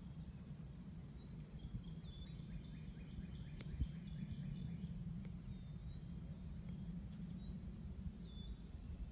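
Outdoor ambience: birds chirping and calling now and then over a low, steady background rumble.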